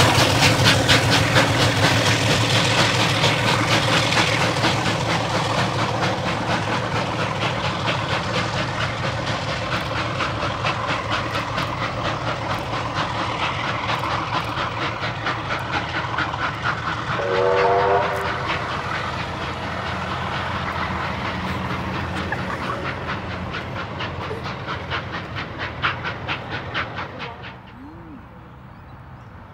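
Heritage train with diesel locomotive 4501 leading steam locomotive 3801 running past and away, a steady rumble with a fast, regular beat that slowly fades. A little over halfway through, a short multi-tone blast sounds from the train. Near the end the sound cuts to quiet open-air background.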